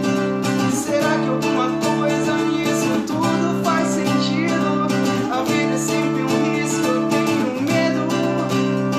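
Acoustic guitar strummed in a steady rhythm, changing chord about every two seconds, in an instrumental passage of a solo cover song.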